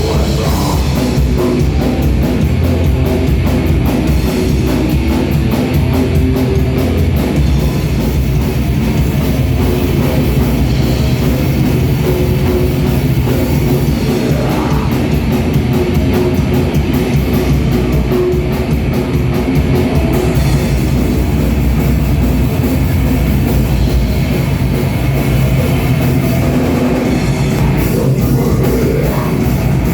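Death metal band playing live: heavily distorted electric guitars and bass over a fast, pounding drum kit.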